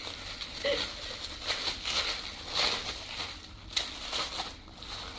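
Irregular rustling and handling noises of gift packaging being handled and turned over.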